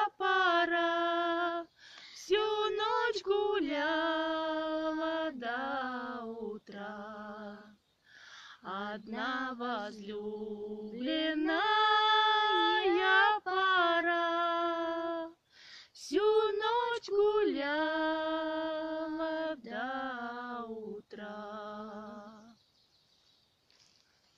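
A woman singing a slow Russian folk song unaccompanied, in long held phrases with short breaks between them. The singing stops about 22 seconds in.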